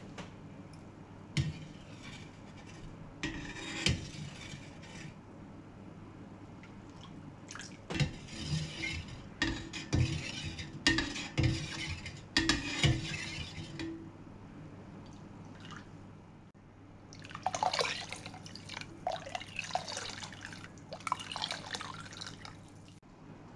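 A metal ladle skimming chicken fat off soup in a stockpot: sharp clinks of the ladle against the pot, with liquid dripping and pouring from the ladle into a bowl. The clinks cluster in the middle, and a longer stretch of splashing pours follows near the end, over a steady low hum.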